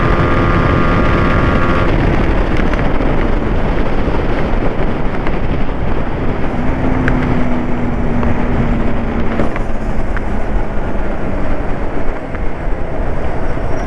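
Motorcycle running at speed on a drag run, with heavy wind rush on the microphone. The engine note holds steady through the middle, and the loudness dips briefly near the end.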